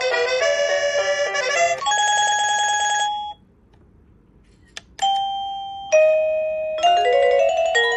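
Wireless doorbell chime playing its electronic ring tunes. A quick melody of notes gives way to a pulsing single tone that stops about three seconds in. After a short pause and a click, a falling two-note ding-dong sounds, and another tune starts near the end.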